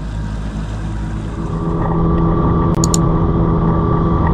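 Small boat's outboard motor running under way, with water and wind noise; about two seconds in it turns louder, with a steady even hum. A few quick high clicks come near the three-second mark.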